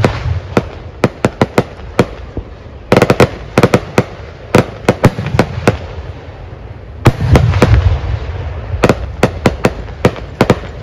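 Firecrackers going off: dense rapid volleys of sharp cracks starting about three seconds in and again about seven seconds in, with scattered single bangs between.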